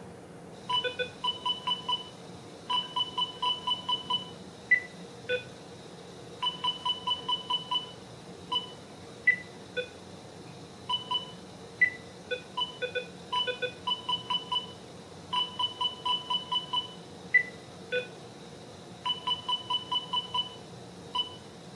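Electronic beeping sound effect from the SW1200RS model locomotive's sound decoder, triggered with function F16: quick runs of short beeps at two pitches at about six a second, broken by single lower beeps, repeating in a regular pattern throughout.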